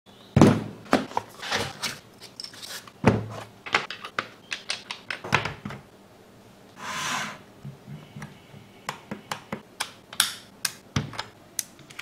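A boxed mechanical keyboard and the keyboard itself being handled on a desk: a heavy thud as the box comes down, another thud about three seconds in, then a run of lighter knocks, taps and clicks. There is a short rustling swish about seven seconds in, and quick small clicks near the end as a cable is fitted to the keyboard.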